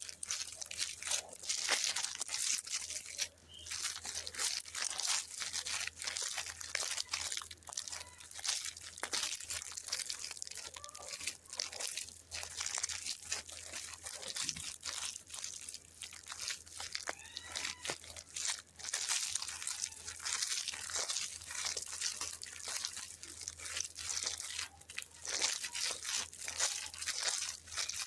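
Plastic sweet packaging crinkling and tearing as it is handled and opened: a continuous irregular crackle of many small clicks.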